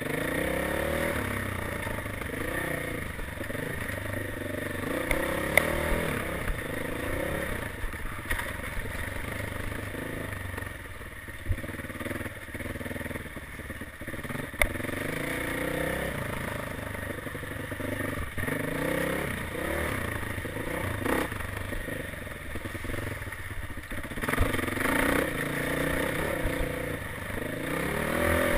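Dirt bike engine revving up and down as it is ridden over rough trail, with clatter and knocks from the bike over the bumps and a few sharp clicks.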